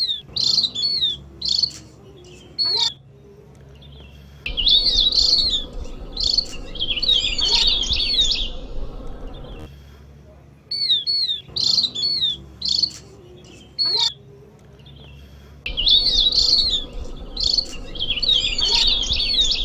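Opior jawa (Javan grey-throated white-eye) singing: a few short, sharp chirps with quick downward slurs, then two dense phrases of high twittering. The same sequence repeats about ten seconds later.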